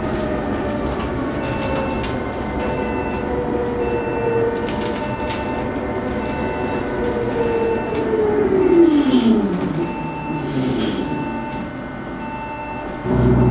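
Proterra Catalyst battery-electric bus's drive motor whining inside the cabin while under way, its pitch steady and then falling steeply about eight to ten seconds in as the bus slows. A faint beep repeats a little over once a second, and a loud low thump comes near the end.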